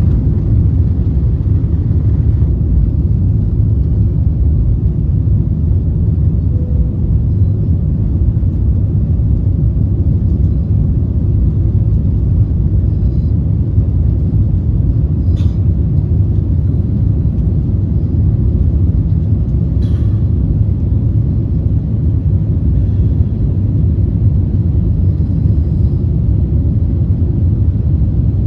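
Airliner cabin noise during take-off: a loud, steady low rumble of engines and airflow heard from inside the passenger cabin, with a couple of faint clicks.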